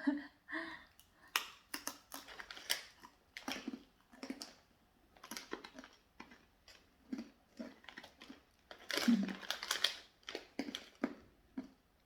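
Someone chewing and crunching a hard, dry snack: irregular crackly crunches, with a denser, louder stretch about nine seconds in.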